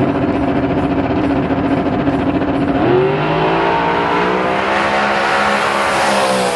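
Chevy II Nova drag car's engine running steady and loud on the starting line, then revving sharply about three seconds in as the car launches. It pulls hard down the strip, rising in pitch and passing close by near the end.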